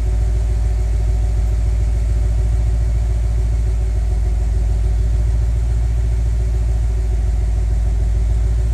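BMW N63 4.4-litre twin-turbo V8 idling through a Megan Supremo dual 4-inch catback exhaust on stock cats, with the engine still cold from its start. The idle is a steady, deep rumble at the tailpipes that holds the same pitch and level throughout.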